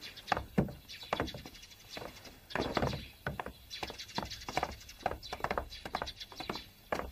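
Several people climbing down from the back of a jeep with a few thumps, then footsteps of several people on hard pavement, irregular sharp steps throughout.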